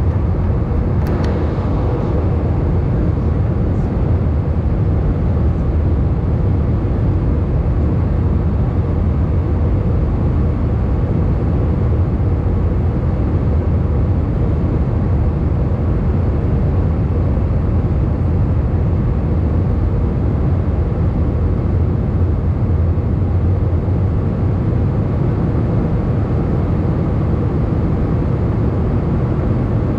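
Steady cabin noise of an Airbus A320 in flight, heard from a window seat over the wing: a deep, even rumble of the engines and rushing air. A brief click about a second in.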